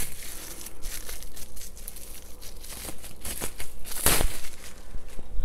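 Bubble wrap crinkling and crackling as it is pulled and unwound from a clear glass swing-top bottle, with a sharper crackle about four seconds in.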